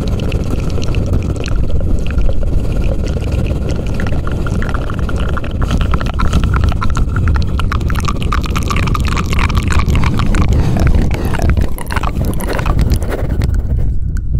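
Close-miked ASMR trigger sounds: a dense run of wet clicks over a steady low rumble of handling on the microphone.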